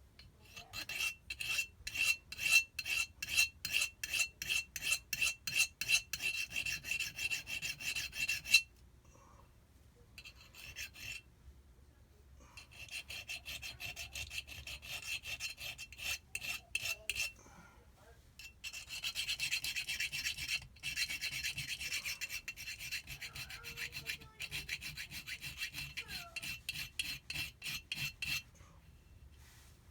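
Hand file stroking back and forth over a metal part of a Kawasaki JS800 jet-ski pump, about two to three strokes a second, stopping and starting again a few times.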